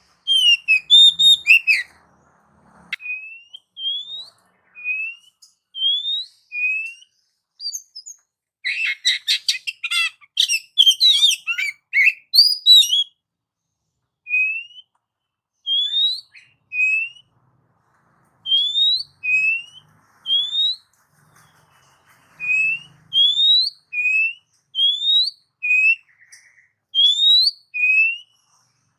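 Oriental magpie-robin (kacer) singing loud, clear whistled song. A varied, rapid phrase near the start and another about a third of the way in are followed by a string of short rising whistles, roughly one a second, with brief pauses.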